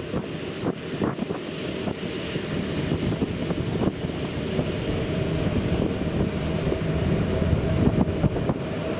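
Wind buffeting the microphone over the low, steady rumble of a car ferry under way, with a faint steady hum.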